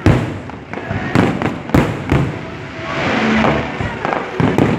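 Aerial fireworks bursting: a run of about six sharp bangs at uneven intervals, with a stretch of crackling noise about three seconds in.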